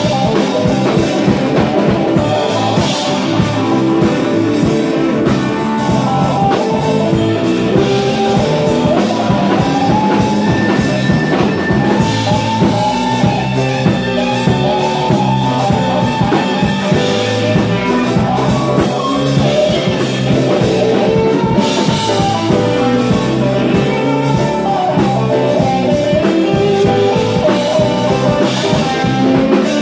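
Live band playing an instrumental passage: electric guitar, electric bass, keyboard and drum kit together, at a steady beat.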